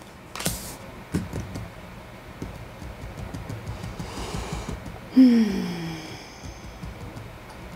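A woman's breaths through the nose, then about five seconds in a short closed-mouth "hmm" that falls in pitch, the loudest sound here; a soft tap or two of a card laid on the table early on.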